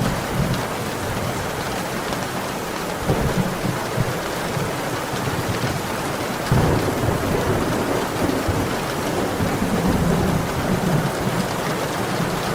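Steady rain pouring down, with low rumbles of thunder. The biggest rumble begins about six and a half seconds in and rolls on for several seconds.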